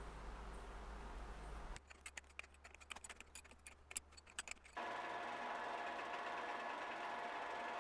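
Metal lathe at work while a thread is cut in a duralumin part with a homemade tap, in edited snippets. First a steady hum, then about three seconds of irregular clicks and ticks, then from about five seconds in a steady machine whine.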